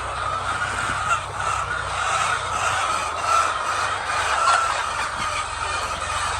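A large flock of chickens clucking and chattering together in a dense, continuous din, over a steady low hum.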